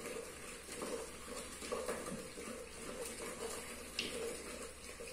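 Cooked kumutti greens being mashed in a clay pot with a churner (mathu) twirled between the palms: faint wet churning that pulses with each twist of the churner.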